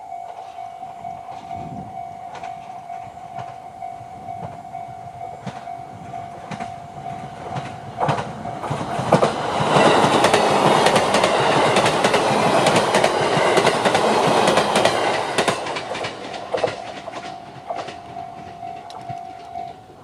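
JR East 'Tohoku'-type electronic level-crossing bell ringing steadily, while a JR E129 series electric train passes loudly through the crossing from about eight to sixteen seconds in. The bell stops near the end as the crossing clears.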